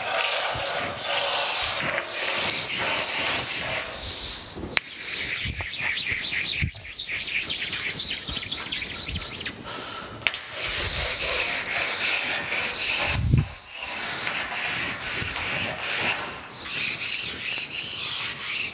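A precision-ground flat sharpening stone rubbed back and forth on the scraped cast-iron ways of a metal planer base, a steady gritty rasp of repeated strokes as it stones off the burrs raised by hand scraping. A few light clicks and one louder thump come past the middle.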